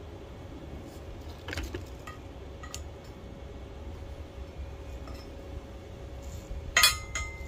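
Metal clinking and clanking as steel pieces are handled: a slotted steel angle bar being set against a metal pole. There are a few light clinks, then a louder double clank near the end, over a faint steady hum.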